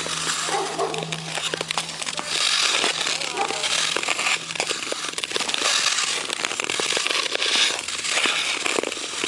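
Hockey skate blades cutting and scraping across outdoor ice, heard up close: a run of fine crackles and clicks, with a louder hissing scrape at each stride every second or two.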